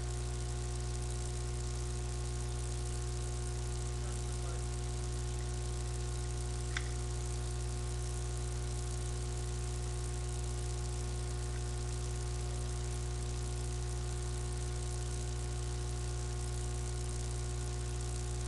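Steady electrical hum with hiss, the low buzz of a webcam's microphone, with one faint click about seven seconds in.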